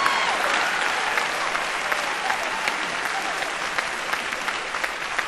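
Large theatre audience applauding, a dense patter of many hands clapping, with a few cheering shouts at the start; the applause slowly dies down.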